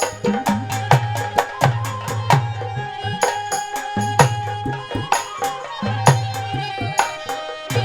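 Instrumental interlude of Haryanvi ragni folk music: a quick, even hand-drum beat under a steady held melody line.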